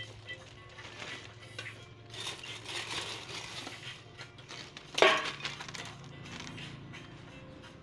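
Crisp chicharon (fried pork rinds) rattling and crunching as they are scooped with a metal scoop out of a steel bowl and poured into a plastic bag, with one sharp, loud clatter about five seconds in.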